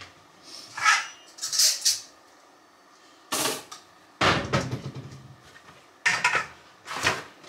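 Kitchen clatter: dishes and metal pots or bowls being handled and set down, with knocks like cupboard doors. About seven separate clanks and knocks, with quiet in between.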